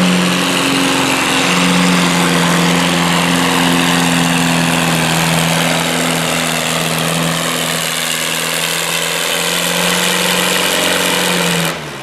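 Antique McCormick Farmall pulling tractor's engine running hard and steady as it drags a weight-transfer sled down the track, its pitch slowly falling as the load builds. The sound stops abruptly just before the end.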